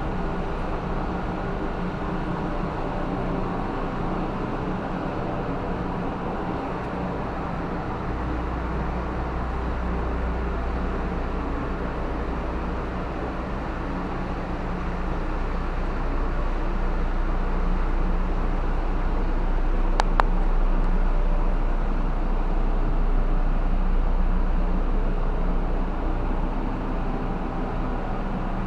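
Ship's engine-room machinery running steadily, a dense mechanical drone with a deep hum that strengthens about a third of the way in. A brief sharp sound cuts through about two-thirds of the way in.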